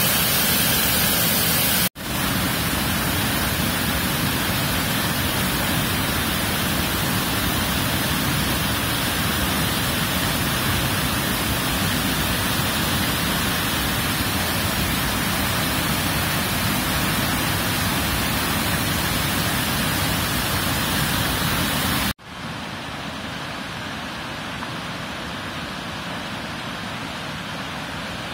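Rushing water of a waterfall and boulder-strewn stream, a steady, even rush. It breaks off abruptly about two seconds in, and again about six seconds before the end, where it comes back quieter and duller.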